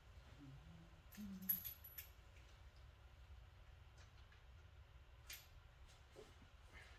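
Near silence: a low steady hum with a few faint clicks, a cluster of them about a second in and one more about five seconds in.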